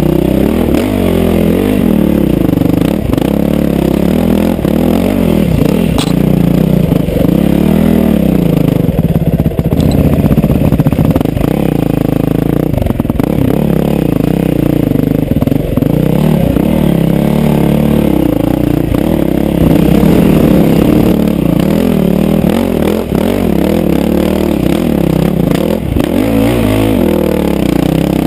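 Yamaha WR450F dirt bike's single-cylinder four-stroke engine revving up and down again and again as the rider works the throttle up a rocky trail. There are a few sharp knocks from the bike over the rough ground.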